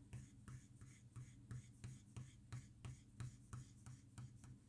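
Soft 6B graphite pencil scratching faintly on drawing paper in quick, short, repeated strokes, about three a second, as fur is sketched in with curved hair lines.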